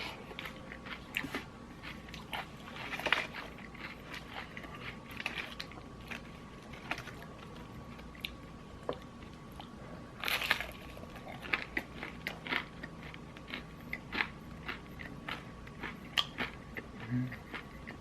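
Close-miked chewing and crunching of crispy Popeyes fried chicken, irregular crunches with louder bites about three seconds and ten seconds in.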